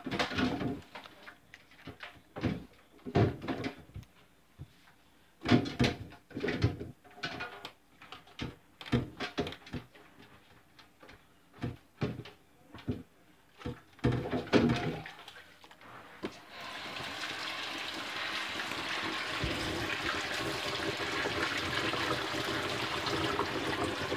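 Dishes and a stainless steel pot clattering and knocking in a kitchen sink, in irregular bursts for about fifteen seconds. Then the tap is turned on and runs steadily, filling the pot with water.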